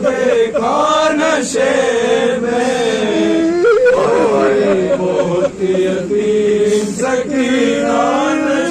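A man's voice reciting a noha, a Shia lament, sung into a microphone in long, wavering, drawn-out lines.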